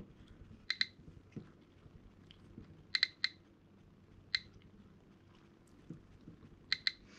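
GQ GMC-500 Geiger counter clicking at irregular intervals, a short high beep for each detected count, some coming in quick pairs or threes. It is picking up radiation from uranium ore at about 85 counts per minute, a medium level.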